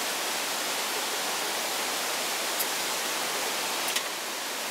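Steady rush of a mountain stream flowing over rocks. Two light knocks cut through it, the louder one near the end as a glass beer bottle is set down on the table.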